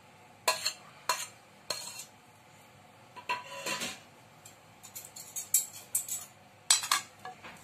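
Metal spoon scraping and clinking against metal cookware as the sautéed mango-carrot mixture is scooped out onto rice. The clinks and scrapes come in short irregular bursts, with a longer ringing scrape a little past three seconds in and another cluster near the end.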